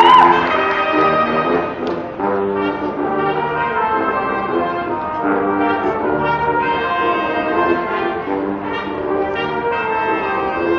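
A school marching band's brass section playing slow, sustained chords, the notes changing every second or so.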